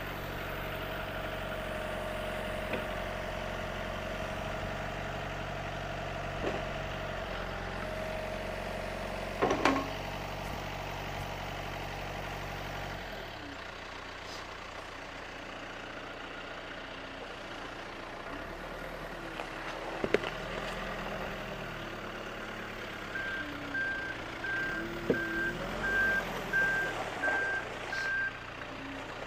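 Backhoe engine running steadily, its note dropping lower about halfway through, with a sharp knock or two. Near the end its reversing alarm beeps about seven times.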